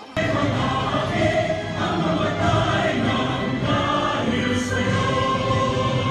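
Many voices singing together with musical accompaniment in a large hall, in long held notes. It starts abruptly a moment in.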